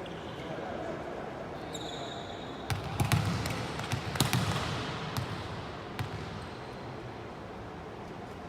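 Volleyball rally on an indoor court: a string of sharp smacks of hands striking the ball, several between about three and six seconds in, with sneakers squeaking on the court floor just before.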